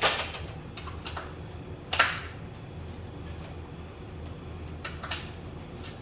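Sharp clicks and knocks of hand work on a truck's radiator mounting, the loudest about two seconds in, with a few fainter ticks later, over a steady low hum.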